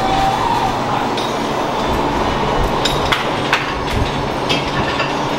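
Gym din: a steady noisy background broken by scattered sharp metallic clanks and clinks of weights and machines.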